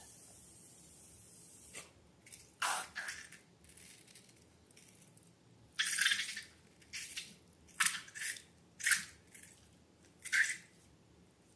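Slime being handled and mixed, making wet squishing and dripping sounds in about seven short bursts with gaps between them.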